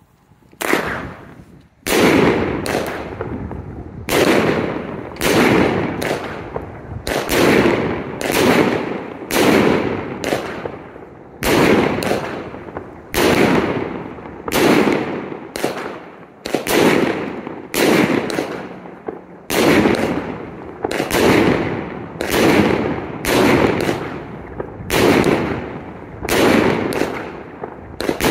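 Tannerite M25 Airburst Salute Cake firing: a long string of loud airburst salute bangs, about one a second, each followed by a long rolling echo.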